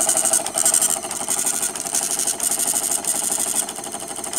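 AccuVote ballot tabulator's built-in tape printer printing a copy of the zero tape: a rapid mechanical buzz broken by short pauses about twice a second as it prints line after line.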